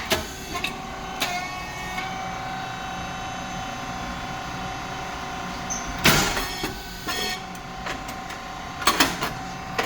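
SYP9002 rice cake popping machine running: a steady hum from its hydraulic motor and pump. Sharp bangs come about a second in, loudest around six seconds in, and again near nine seconds.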